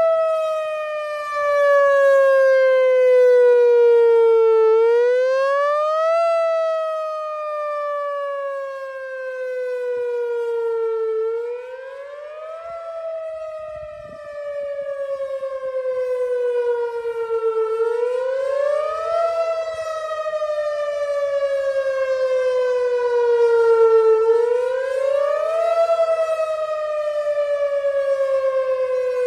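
Whelen Vortex electronic outdoor warning siren sounding its monthly test. Its tone rises quickly, then falls slowly, about every six and a half seconds. Its loudness swells and fades as the rotating head turns.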